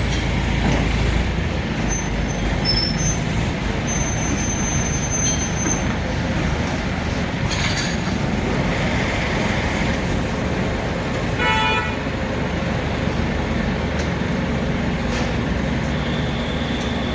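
Diesel engine of a Hydra mobile crane running steadily while it lifts a cast-iron band saw body. A few louder knocks come about two to three seconds in, and a short horn toot about halfway through.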